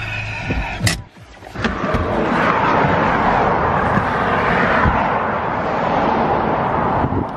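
Traffic on a main road rushing past, a steady noise that swells towards the middle and eases near the end.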